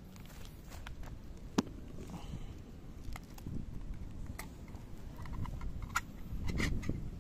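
Cats crunching dry kibble from a plastic saucer: scattered small crunching clicks, thickest near the end, over a low rumble. One sharper tap about a second and a half in.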